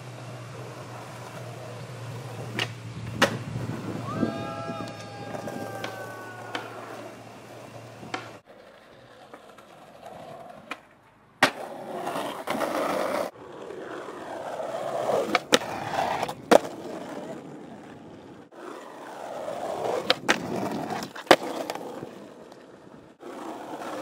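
Skateboard wheels rolling on concrete and asphalt, the rumble swelling and fading, with sharp clacks of the board hitting the ground. The sound comes in several short stretches that break off suddenly.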